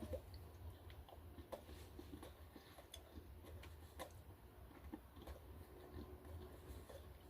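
Faint chewing of a chocolate-covered banana chew: scattered soft, irregular mouth clicks over a low steady hum.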